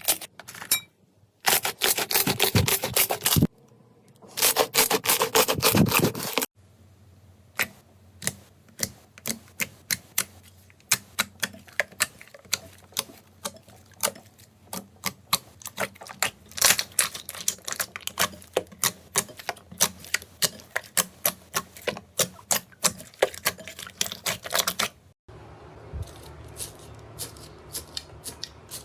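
Slime being handled close to the microphone: dense crackling and popping for the first several seconds, then a long run of sharp clicks and pops, several a second. Near the end the sound changes to a quieter, softer texture with only a few clicks.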